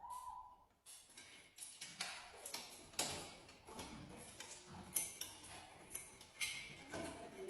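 Faint, irregular clicks and light taps, about one or two a second, over a low hiss.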